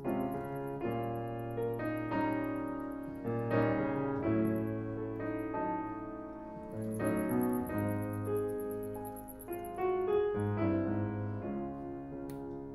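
Background music: slow solo piano playing sustained notes and chords.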